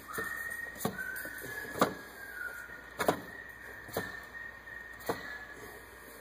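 Plastic radiator fan shroud being worked into place in the engine bay: high squeaky rubbing through the first half and sharp knocks about once a second.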